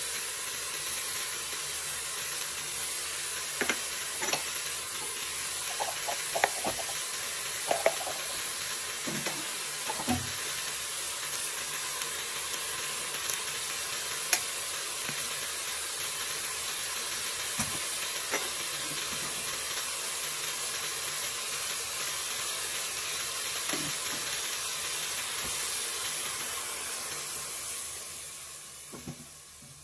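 Meat and seasonings sizzling in a hot pot: a steady hiss with a few sharp clicks, dying away near the end as water is poured in.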